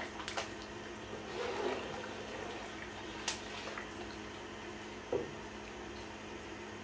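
A large pot of seasoned water at the boil being stirred, the liquid sloshing and bubbling, with a few light clicks of the utensil against the pot.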